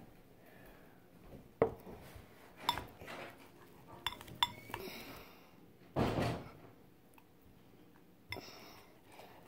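A plastic spoon stirring and scraping slime mixture of glue and liquid laundry detergent in a plastic bowl. It makes quiet, scattered taps and scrapes, the longest and loudest about six seconds in.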